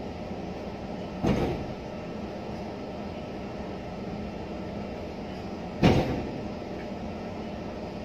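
Two short knocks, about four and a half seconds apart, the second a little louder, over a steady low rumbling background.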